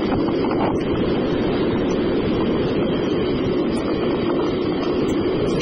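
Steady rumbling wind and rolling noise on the microphone of a camera riding along on a bicycle, with no engine tone or voices in it; it cuts off suddenly near the end.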